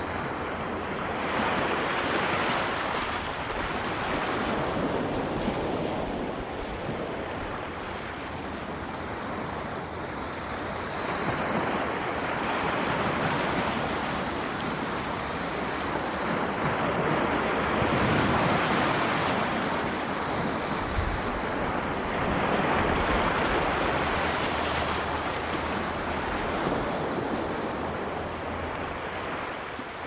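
Sea waves breaking and washing up a shore, a steady rush of surf that swells and ebbs every few seconds.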